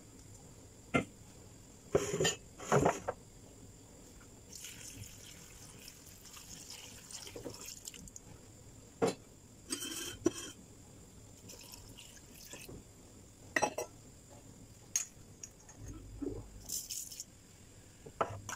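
Water poured into a stainless steel stockpot over shrimp shells, a pour lasting a few seconds, with several sharp clinks and knocks of cookware around it.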